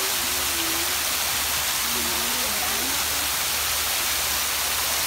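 Fountain water spilling over the rim of a wide basin and splashing into the pool below: a steady rushing splash.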